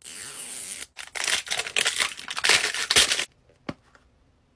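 A plastic surprise capsule ball being unwrapped and opened: a steady peeling hiss as the seal comes off, then irregular crinkling and tearing of the plastic wrapping, with a sharp snap about three seconds in as the ball's halves come apart.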